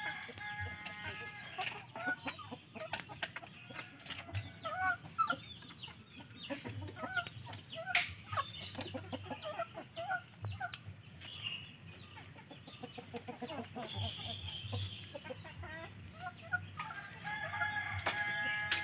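Domestic chickens clucking in short calls throughout, with a longer drawn-out call near the start and again near the end.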